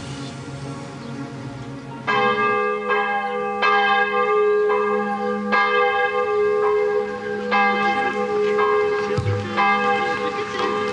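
Church bells ringing, a new strike about once a second, each tone ringing on into the next. They come in loudly about two seconds in, after a quieter low steady sound.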